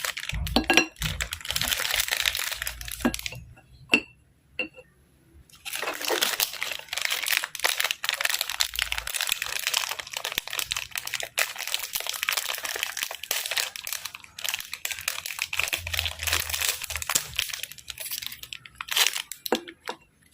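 Oreo cookie packaging crinkling and crackling as it is handled, a dense run of small crackles with a pause of about two seconds about four seconds in.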